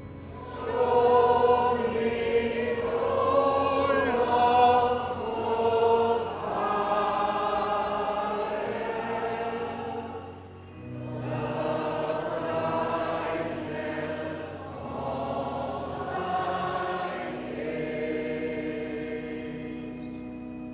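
A church choir singing a slow hymn in the old English Anglican style, in long held phrases with short breaks between them.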